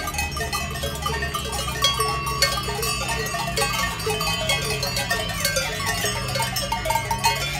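Many cowbells clanking unevenly as a herd of cattle walks along the road, over a steady low hum.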